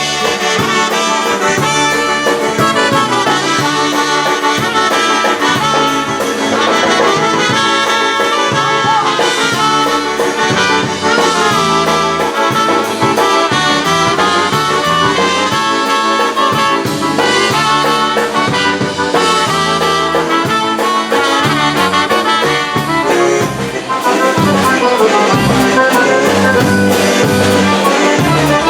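Band playing an instrumental break of an oberek, a fast Polish dance tune, with brass leading over bass and drums. About five seconds from the end the music dips briefly and comes back fuller.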